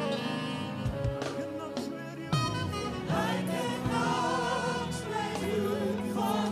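Gospel worship song with band and choir. A held instrumental passage gives way about two seconds in to voices singing over the band.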